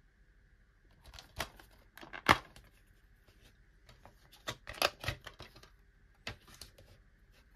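Plastic DVD case clicking open and a disc being pressed and unclipped from its hub: a string of sharp plastic clicks and snaps, the loudest about two seconds in and a quick cluster near the middle.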